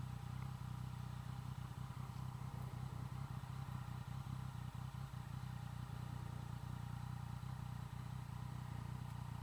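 Yamaha FZ-09's inline three-cylinder engine running steadily at low revs, faint and even with no revving.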